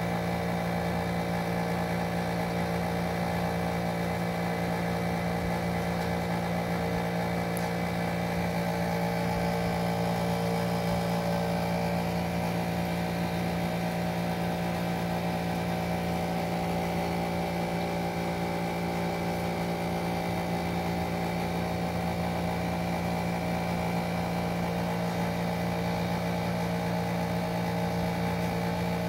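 A steady mechanical hum made of several fixed tones, unchanging in pitch and level.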